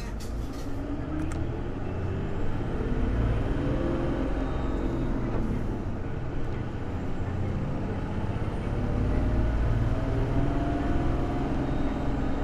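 Hino BJG-HU8JMFP hybrid city bus's diesel engine pulling hard under acceleration, revving up twice with the pitch rising and then dropping at each gear change, over a low rumble.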